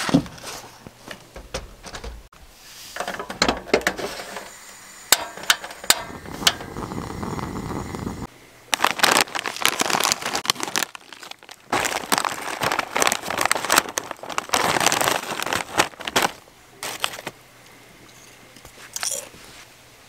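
Irregular spells of crinkling and rustling with many scattered sharp clicks, dying down about three-quarters of the way through.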